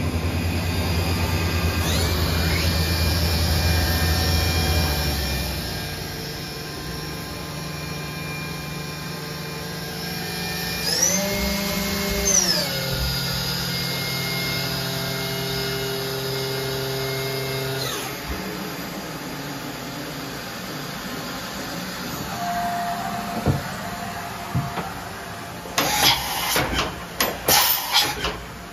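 Mazak VCC-5X 20K five-axis CNC machining center running, its drives giving a steady machine whine made of several held tones. About halfway through the whine glides up in pitch and back down, and near the end there is a quick run of sharp clacks.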